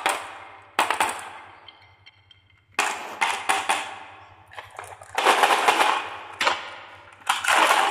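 Marbles clattering in a plastic toy dump truck's bed, in several bursts of rapid clicking. The longest and loudest burst, about five seconds in, comes as the bed is tipped and the load of marbles rolls and knocks together.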